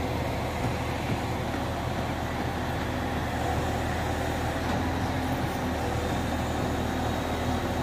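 Mobile crane's diesel engine running steadily under load while hoisting, a constant low hum that holds one pitch.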